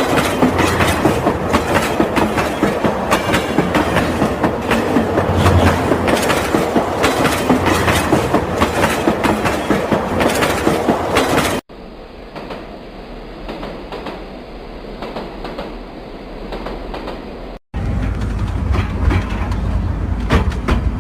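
Train running on rails, its wheels clattering with quick clicks. About halfway through there is an abrupt cut to a quieter, duller stretch of running. Near the end another cut brings back a loud low rumble.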